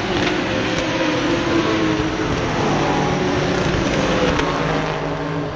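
GT race cars passing along the straight at speed, their engines running at high revs and overlapping into one loud, continuous sound that eases slightly near the end.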